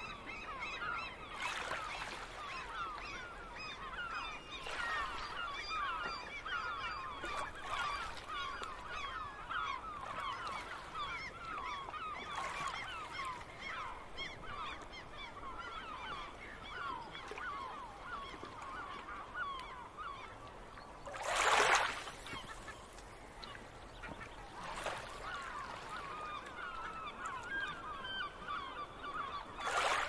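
A flock of gulls calling continuously, many short cries overlapping into a steady chatter. About two-thirds of the way through comes a brief, louder rush of noise.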